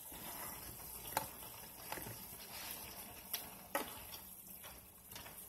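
Vegetables in soy sauce sizzling and simmering faintly in a stainless steel sauté pan, with a few short clicks of a spatula against the pan as they are stirred.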